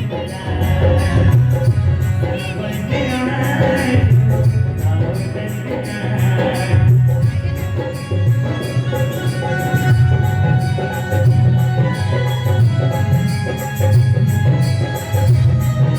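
Devotional bhajan music: a hand drum keeps a steady beat under jingling percussion and sustained instrumental tones.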